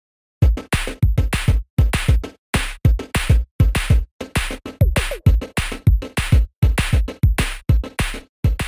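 Background music with a fast, punchy drum beat and heavy bass kicks, starting about half a second in.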